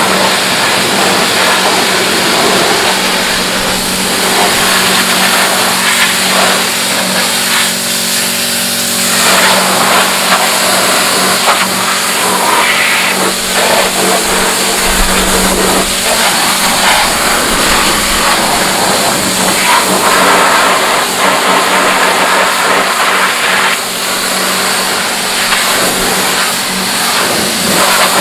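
Pressure washer running steadily: a constant motor hum under the loud hiss of the water jet rinsing a car's engine bay, the spray sound shifting as the jet moves over the engine.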